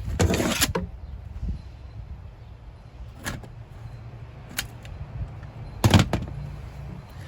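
Hand work on a van's interior fixtures: a noisy clatter in the first second, two sharp knocks in the middle and a loud knock about six seconds in, over a low steady hum.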